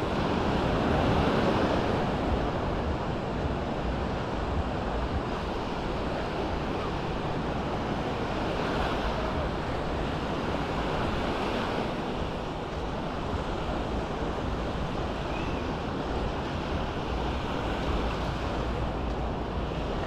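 Small waves breaking and washing up on a sandy shore, a steady surf wash that swells a little now and then, with wind on the microphone.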